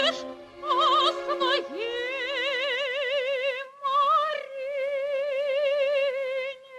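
Operatic singing with wide vibrato: two voices together at first, then one voice holding a long high note that breaks off about six and a half seconds in.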